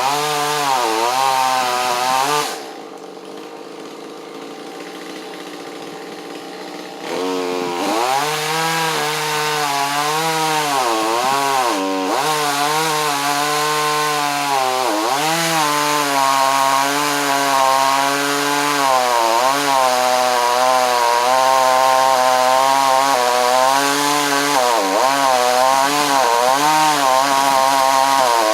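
Small two-stroke chainsaw cutting Osage orange hardwood, its engine pitch sagging and recovering again and again as the chain loads up in the cut. About two and a half seconds in it drops to idle, and it revs back up about seven seconds in.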